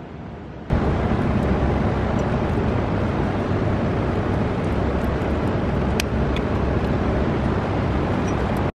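Steady low rumble of running machinery, starting abruptly about a second in and cutting off sharply near the end, with a faint click about six seconds in.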